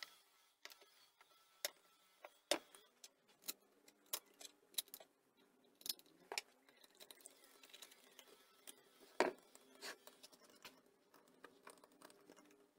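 Scattered light clicks and taps of metal engine parts and hand tools being handled on a wooden workbench during reassembly of a small moped engine. Two sharper knocks stand out, about two and a half seconds in and about nine seconds in.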